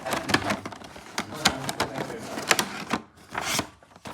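Rapid, irregular clicks and taps of packaging being handled while unboxing a model plane, followed by a short rustle near the end.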